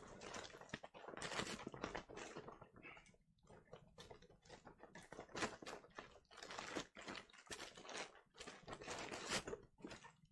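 Irregular crinkling and rustling of packaging being handled and torn open, in short uneven bursts.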